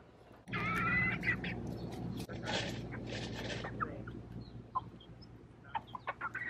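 Young chickens clucking, with a short pitched call about half a second in, then a run of light, sharp taps as they peck food from a bowl.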